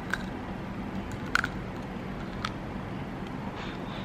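Close-up mouth sounds of chewing a candied strawberry with a sticky sugar coating: three short sharp clicks and smacks, the loudest about a second and a half in, over a low steady hum.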